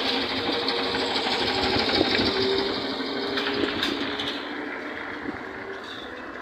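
ZiU-682G-016.03 trolleybus pulling away and driving off: a steady electric drive hum and fast mechanical clatter with tyre noise, loudest about two seconds in and fading as it moves away.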